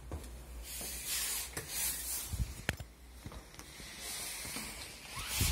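Rustling with a few soft knocks as someone walks down a tiled staircase holding the camera.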